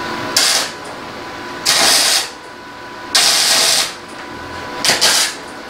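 MIG welder laying short tack welds on a thin sheet-metal roof panel: about four brief bursts of crackling arc, each under a second, with short pauses between them.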